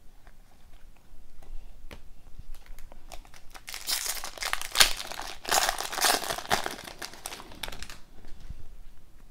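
Foil wrapper of an O-Pee-Chee Platinum hockey card pack being torn open and crinkled by hand. After a few light clicks, the crackling gets loud from about four seconds in and dies down about eight seconds in.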